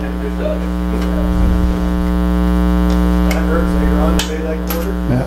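Loud, steady electrical mains hum with its stack of overtones, carried on the sound system. Faint voices murmur over it, and a few sharp clicks come in the last two seconds.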